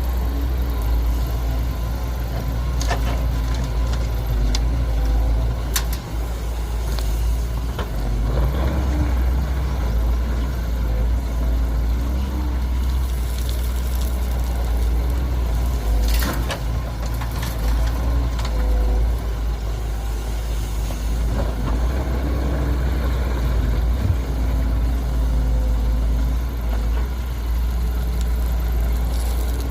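Heavy diesel engines of an excavator and dump truck running steadily at work, with a few sharp knocks and clanks.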